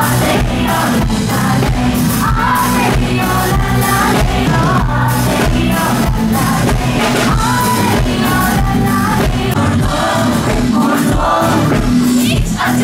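Live Turkish pop played loud through a concert PA: a woman singing lead into a microphone over a band with a steady drum beat and keyboards.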